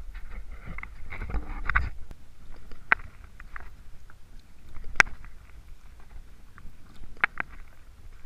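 Kayak paddle strokes: water splashing and dripping off the paddle blades beside the hull, with a few sharp ticks of drips or the paddle tapping, the loudest about five seconds in. A low rumble runs underneath.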